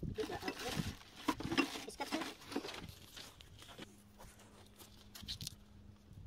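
Scattered clicks and rustling from hands handling cable cores and electrical tape, busiest in the first three seconds. After that a faint steady hum continues.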